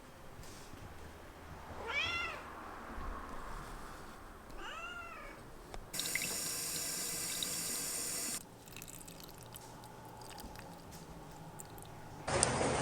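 A cat meowing twice, each meow rising and falling in pitch, then water running steadily from a tap for about two and a half seconds. Just before the end a sudden loud rush of noise cuts in.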